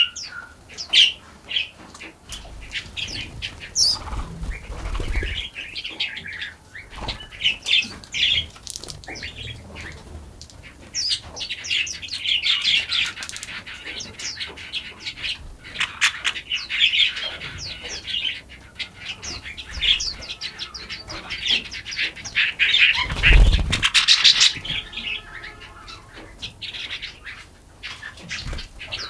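Forest songbirds chirping and calling in a busy chorus of short, quick notes. A short low rumble comes about 23 seconds in.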